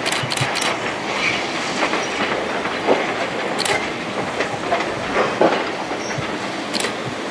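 LMS Jubilee class steam locomotive and its coach rolling slowly over station trackwork: a steady rumble of wheels on rail, broken by a few irregular clanks as the wheels cross joints and points.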